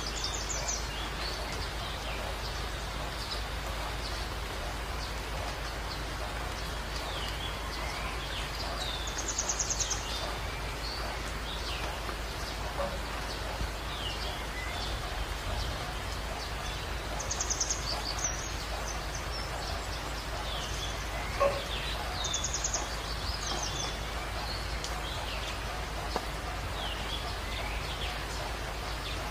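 Small birds chirping on and off over a steady hiss, with a quick high trill every several seconds and one sharp click about three-quarters of the way through.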